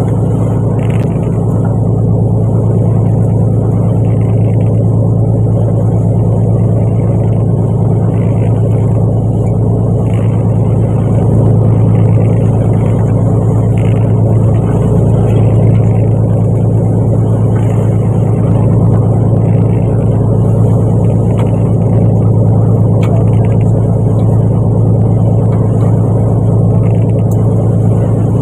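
Fishing boat engine running at a steady, loud, low drone.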